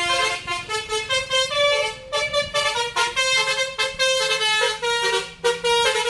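Melodic multi-tone dump truck horn playing a quick tune of short notes that change pitch several times a second, with a couple of brief breaks.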